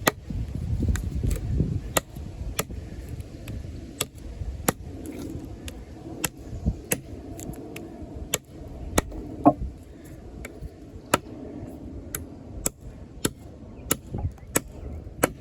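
Large bowie knife with a 7-inch D2 steel blade chopping into hard, dry wood: a steady run of sharp strikes, roughly one every two-thirds of a second.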